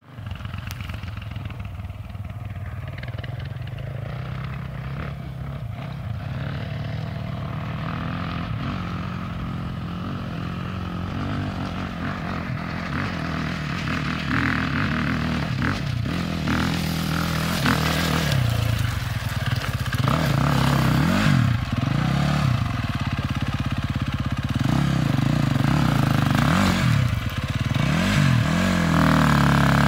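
Dirt bike engine working up a rocky hill climb, growing steadily louder as it approaches. In the second half it revs up and down repeatedly as the throttle is worked over the rough ground.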